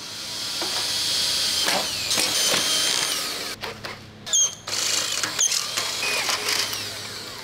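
Makita cordless drill boring bolt holes through a thin steel cover plate, with the bit whining in the metal. The drilling comes in two runs, with a short break and a click about four seconds in.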